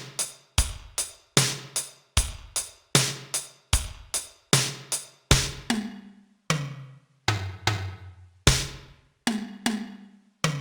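Drum-kit beat with bass notes and no piano melody, in a steady pattern of sharp hits: the instrumental interlude of the backing track before the piano melody comes back in.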